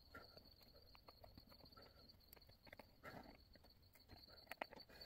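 Near silence: a few faint clicks and handling noises over a faint steady high-pitched tone.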